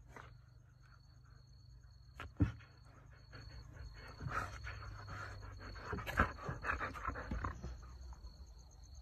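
Siberian husky panting and huffing close to the microphone, loudest in the middle stretch, with two sharp knocks about two and a half and six seconds in, over a low steady hum.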